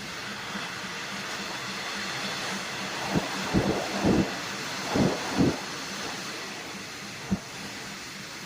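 Passenger train running: a steady rumbling hiss, with a run of short dull thumps, several in close pairs, in the middle and one more near the end.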